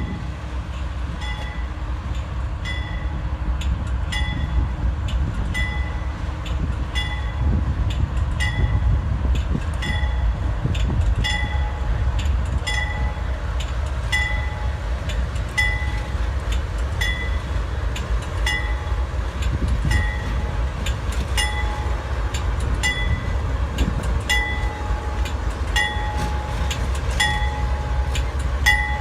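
A train's low rumble, steady throughout, with a bell ringing evenly, one ding about every second and a half.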